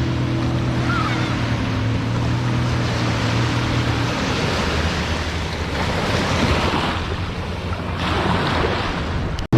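Boat engine running steadily under the rush of wind and rough sea; the engine hum drops out about four seconds in, leaving only wind and waves.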